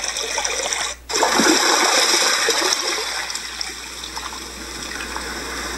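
Elesories S5 STD white noise machine playing a recorded running-water nature sound through its small speaker. About a second in the sound cuts out for an instant as the mode is switched, then a water sound resumes, easing off in the middle and swelling again near the end.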